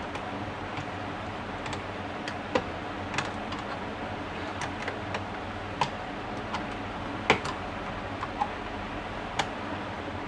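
Irregular small clicks and taps from hand work on a two-way switch board's wiring and cover, about a dozen of them, the loudest a little past the middle, over a steady background noise.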